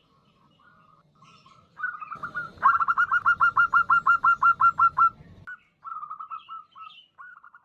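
Female zebra dove (perkutut) calling to males. Faint soft notes come first; about two and a half seconds in comes a loud, fast run of short staccato coos, about six a second, which stops about five seconds in. Two shorter, quieter runs follow.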